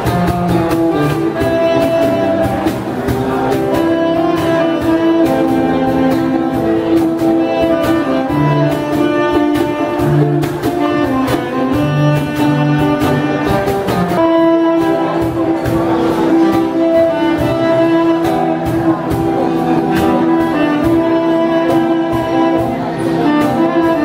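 Live saxophone playing a melody of held notes over a strummed acoustic guitar and a steady cajon beat.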